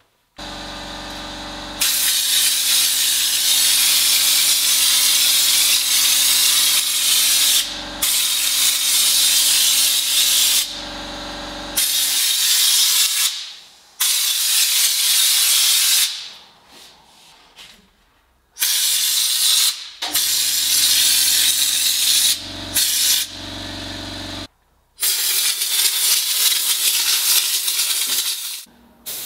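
Compressed-air spray gun hissing in repeated bursts of one to six seconds with short breaks between, spraying a coating. A steady low hum runs under the bursts in the first half.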